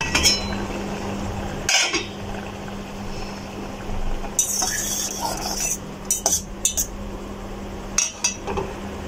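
Metal fork clinking and scraping against a stainless steel saucepan as simmering tamarind is stirred, with a steady low hum underneath.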